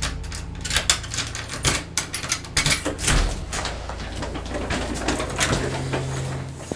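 Irregular clicks, rattles and knocks of a front door's brass deadbolt and knob being handled and turned.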